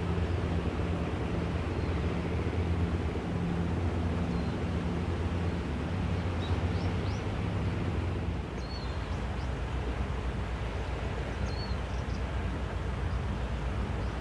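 Distant motorboat engine droning with a steady low hum over a hiss of wind and sea; the hum weakens about eight seconds in. A few faint, short, high chirps sound in the second half.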